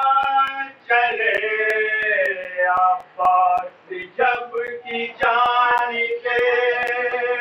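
A man chanting a religious recitation in long held, slightly wavering notes, broken by short pauses.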